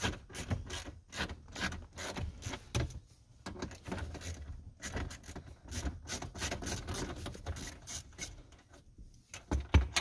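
Hand tool backing out the lower dash cover's 7 mm bolts: irregular small clicks and scraping of metal and plastic, with a louder knock near the end.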